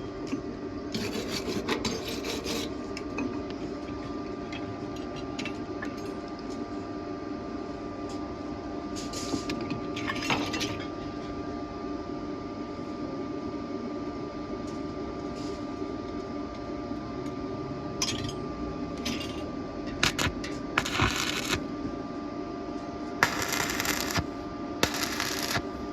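Metalwork on steel tubing: short harsh bursts of scraping and metallic clinking over a steady electrical hum, with the bursts coming closer together near the end.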